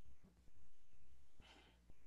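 Quiet pause with a steady low hum and a brief soft breath about one and a half seconds in.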